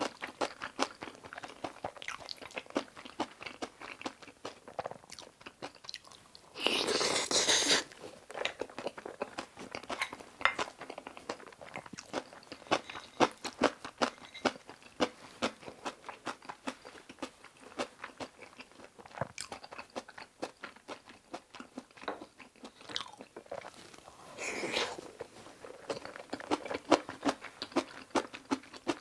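Close-miked chewing of a mouthful of kimchi cream fried rice: a dense run of quick, moist mouth clicks. It is broken twice, about seven seconds in and again near twenty-five seconds, by a louder noisy sound lasting about a second.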